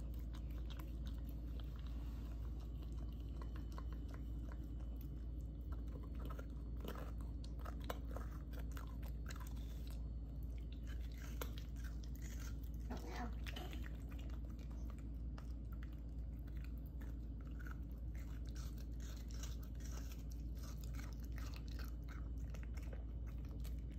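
Small dog licking and chewing a frozen treat from a stainless steel bowl: irregular wet licks and crunchy clicks, coming thicker in the second half, over a steady low hum.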